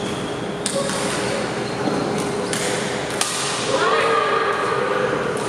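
Badminton rackets striking a shuttlecock in a doubles rally: four sharp hits in about three seconds, echoing in a large sports hall. A voice calls out just before the end.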